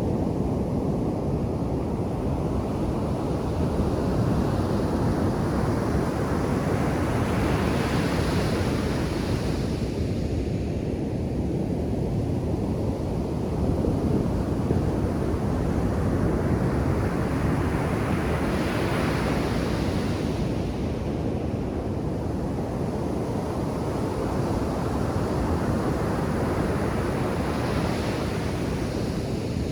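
Ocean surf breaking on a beach: a steady low rumble of waves, with three swells of hissing wash about ten seconds apart as waves break and run up the shore.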